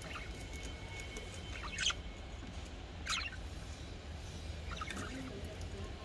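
Budgerigars chirping in short, sharp calls, the two loudest about two and three seconds in and a few fainter ones near the end, with a thin held whistle in the first two seconds, over a steady low background rumble.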